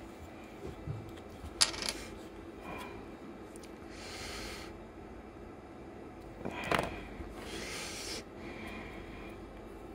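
Small objects handled on a tabletop: a light tap about two seconds in and a sharper knock near seven seconds as a tube's cap and then the grease tube are put down, with a few short, soft rustles between.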